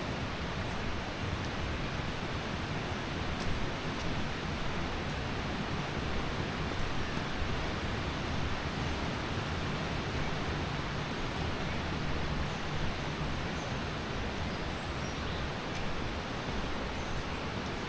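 Steady rush of flowing water from a river or waterfall, an even hiss that doesn't change.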